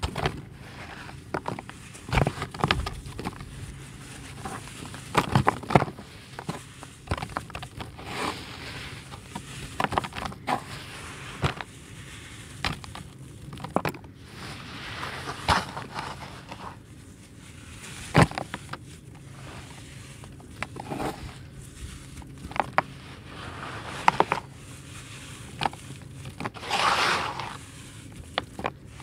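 Dry red dirt chunks crushed and crumbled by hand in a tub: irregular gritty crunching and crackling, with crumbs falling back onto the pile. A longer rustling crunch comes near the end.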